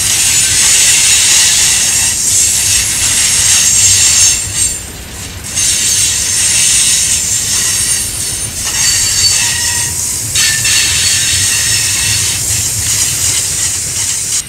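Freight train tank cars rolling past close by, their steel wheels on the rail making a steady loud hiss with a faint high squeal from the wheels. The level dips briefly about five seconds in.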